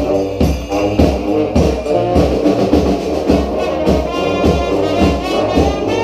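Street brass band playing together: sousaphone, trombones, trumpets and saxophones over bass drum and snare, with a steady beat of about two hits a second.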